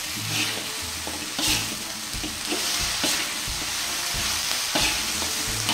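Chicken pieces with onion and peppers sizzling in a non-stick wok while a spatula stirs them, with repeated scrapes and knocks of the spatula against the pan over a steady hiss of frying.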